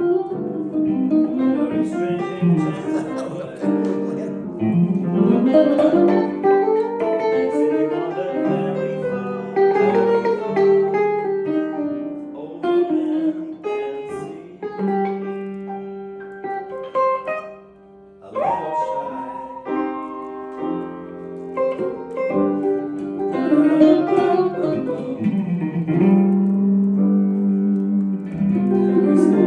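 Instrumental music led by guitar, dipping briefly about two-thirds of the way through.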